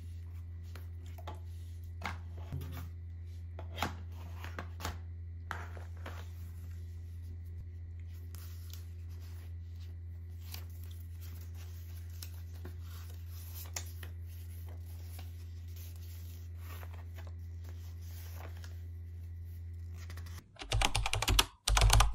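Hands handling a cardboard headphone box and its paper leaflets: scattered soft rustles, clicks and scrapes over a steady low hum, with a short run of much louder knocks near the end.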